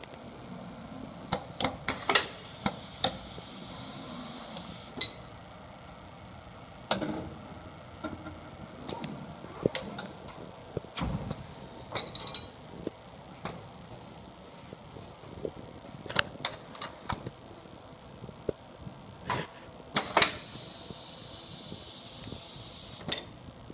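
Festo Modular Production System stations running under compressed air: pneumatic cylinders and valves clack at irregular intervals. Twice, near the start and near the end, compressed air hisses for about three seconds.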